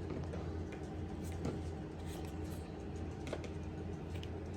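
Faint clicks and light rattles of plastic toy track pieces being handled, a few scattered ticks, over a steady low hum.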